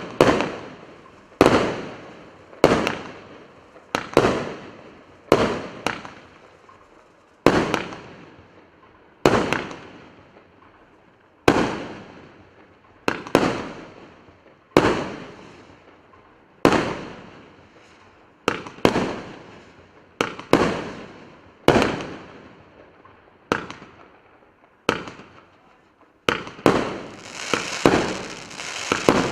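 A 78-shot combined firework cake firing 25 and 30 mm shots one after another, each a sharp bang that fades away, about one every one and a half seconds. Near the end the shots come faster and a dense crackling from crackling stars fills in between them.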